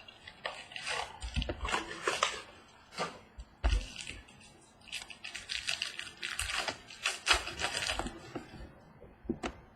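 A trading-card mini box being opened and its cards handled: irregular rustling, scraping and small clicks of cardboard and card stock, with a few soft thumps.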